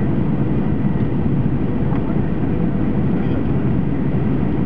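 Cabin noise of a Boeing 737-800 heard from a window seat beside the wing on approach: the steady rumble of its CFM56 engines and rushing airflow, with faint steady tones over it.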